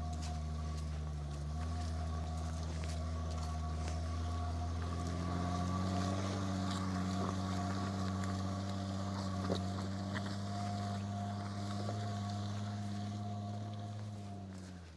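Audi A6 C5 2.8 quattro's V6 petrol engine pulling under load on a muddy off-road climb, its revs stepping up twice and then holding, before fading out near the end.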